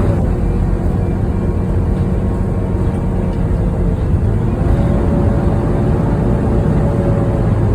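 Volvo B9TL Wright Eclipse Gemini double-decker bus running with a loud 'hoover', the whine of its engine cooling fan, over a steady diesel rumble. The whine dips slightly in pitch at the start, rises about four seconds in, and eases down near the end.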